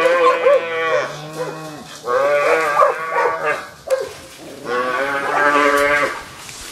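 Cow bellowing: three long, drawn-out moos, each about a second or more, with short gaps between.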